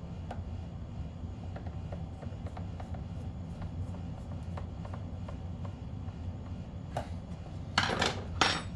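Light ticks and clicks of a screwdriver and plastic HVAC housing parts being handled, over a steady low rumble. A few louder clatters come near the end.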